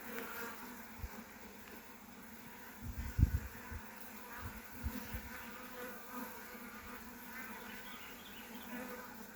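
Honeybees buzzing as a steady hum from a colony in an opened hive under inspection. A few low thumps break in, the loudest about three seconds in and another near five seconds.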